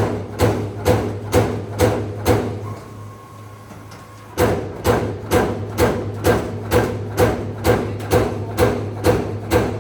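Servo-electric CNC turret punch press punching sheet metal: sharp metallic strikes about two per second, each with a short ring, over a steady low machine hum. The strikes pause for about two seconds a few seconds in, leaving a faint steady tone, then resume at the same pace.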